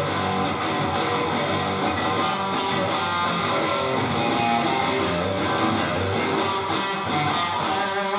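Electric guitar played with an overdriven tone on a Lace Sensor dually humbucker switched to parallel, strumming steady chords with evenly spaced pick attacks.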